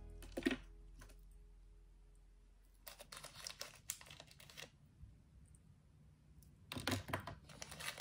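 A small plastic bag of candies crinkling faintly in two short bouts, about three seconds in and again near the end, as fingers rummage in it for sweets. The tail of a music chord fades out in the first second.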